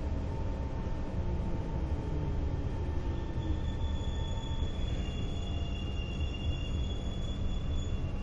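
Kawasaki Heavy Industries C151 metro train heard from inside the car while running: a steady rumble of wheels on rail. Thin high-pitched squealing tones join about three seconds in and again about five seconds in.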